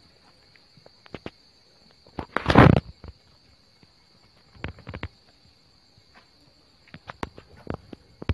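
Steady high-pitched insect trill, like crickets, with scattered sharp clicks and taps and a brief loud scuffing rustle about two and a half seconds in.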